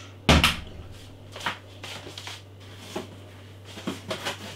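Rustling and knocking of beer bottles being handled and lifted out of a packed delivery box, loudest about half a second in, then a few lighter rustles and knocks.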